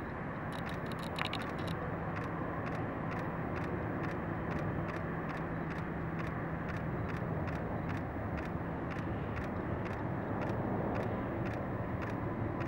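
Steady jet roar of a Boeing 777-200 climbing away after takeoff, with a low hum underneath that drops out about two-thirds of the way through.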